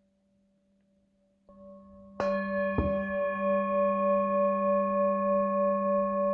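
Singing bowl struck, lightly at first and then firmly about two seconds in, with a short knock just after. It then rings on in several steady tones, its loudness pulsing in a slow wobble.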